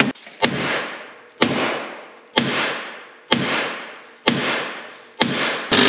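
Hammer blows on a rusted-in bolt in a snowmobile ski spindle, about one a second, each ringing out on the metal. Just before the end a cordless power tool starts running steadily and loudly.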